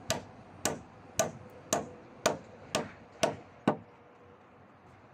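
A hammer striking steadily, about two blows a second, eight blows in all with a short ring after each, then stopping: typical of nailing timber during roof carpentry.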